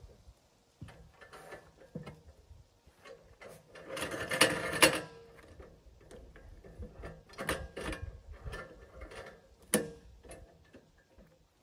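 Irregular metal clicks and knocks from a portable band sawmill's bed as a squared timber is handled and set in place, with a louder scraping rub about four seconds in and sharp clacks later on. No engine is running.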